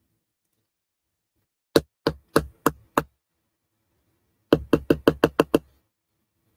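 Knocking: five sharp knocks, then after a short pause a quicker run of seven.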